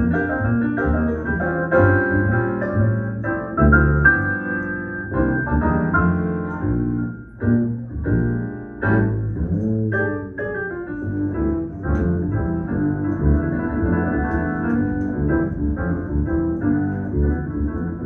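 Jazz music with keyboard chords and runs over a steady low bass line.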